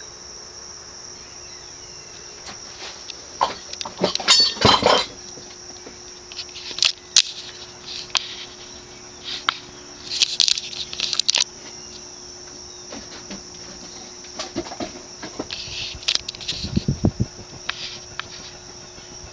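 SMC Laguna KA36 industrial ceiling fan running at a low setting on its solid-state variable-speed control, giving a faint steady hum under a steady high-pitched chirring. Scattered knocks and clatter come and go, loudest about four seconds in, with a few low thumps near the end.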